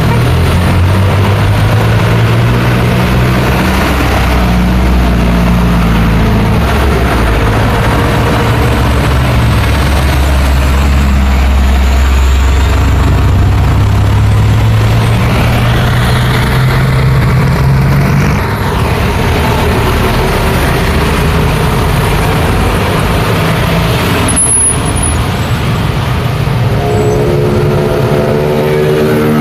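Busy road traffic: a large engine runs with a steady low hum for the first half over the rush of passing vehicles, and near the end another engine revs up, rising in pitch.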